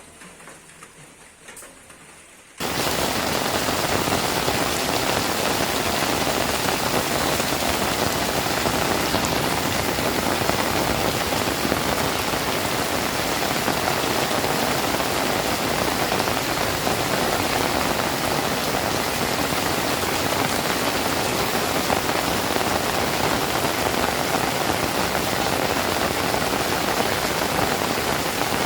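Steady rain falling, with a dense, even hiss that comes in suddenly a few seconds in after a quiet stretch.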